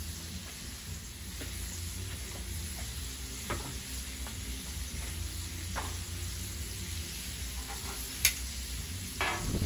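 Pork tenderloins sizzling in hot oil on a Blackstone flat-top griddle: a steady frying hiss with a few faint pops. About eight seconds in there is one sharp metal click as tongs touch the griddle to turn the meat.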